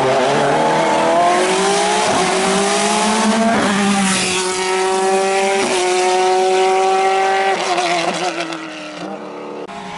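Open-cockpit sports prototype race car accelerating hard, its engine note climbing through four quick upshifts about every one and a half to two seconds, then fading as it goes away near the end.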